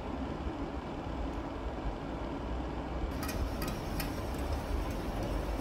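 A chef's knife taps sharply against a cutting board several times in quick succession, starting about three seconds in as carrot is cut into thin strips. Under it runs a steady low kitchen hum.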